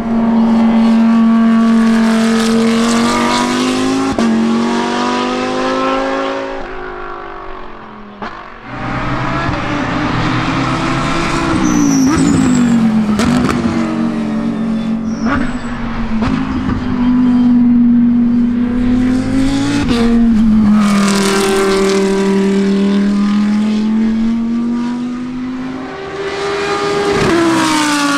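2016 Audi R8 LMS GT3's 5.2-litre V10 race engine running hard on track over several passes. Its loud engine note holds a steady pitch, then steps and slides up and down with the gear changes, with a brief drop in loudness about eight seconds in.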